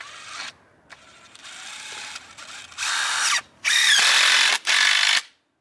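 Cordless drill driving a 3-inch deck screw through crossed white ash poles. The motor runs in short bursts: a quick one at first, a softer run, then three loud bursts close together before it stops near the end.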